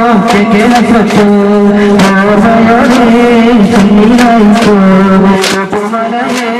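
Islamic devotional singing with melodic vocal lines over a steady low drone, marked by regular sharp percussion strokes.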